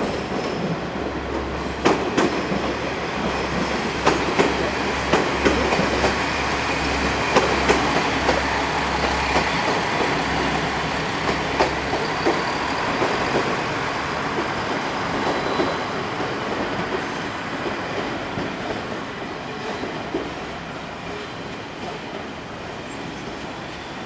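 A train passing over a level crossing, its wheels clacking over the rail joints in quick irregular sets over a steady rumble. It fades gradually over the last several seconds.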